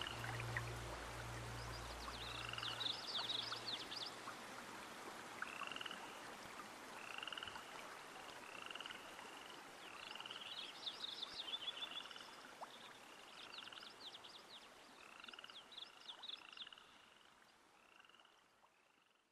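Frogs calling: a short call repeated about once a second, mixed with bursts of rapid clicking trills, the whole chorus fading out near the end. Low, soft music tones die away in the first few seconds.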